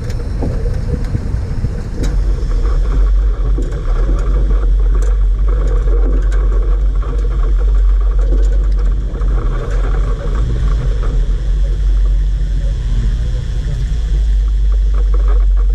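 Toyota four-wheel drive driving slowly over rough lava rock: a steady heavy low rumble from the engine and tyres, with scattered small knocks and rattles throughout.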